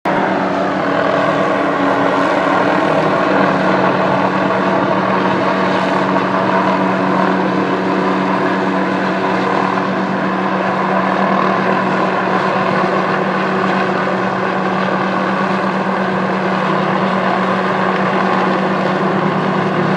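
Helicopter running steadily, a loud, unchanging drone.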